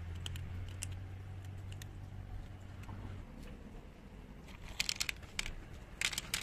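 Faint crunching of kittens chewing dry cat food, then paper crinkling and crackling loudly from about four and a half seconds in as a hand handles the paper of kibble close by.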